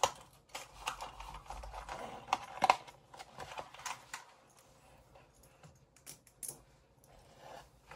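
Small plastic toys and their packaging being handled: irregular light clicks and rustles, busiest in the first three seconds, then sparser and fainter.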